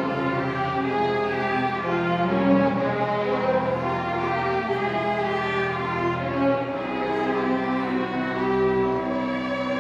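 Acoustic hymn music in which a violin plays held, melodic notes over a lower accompaniment, with no voice clearly heard.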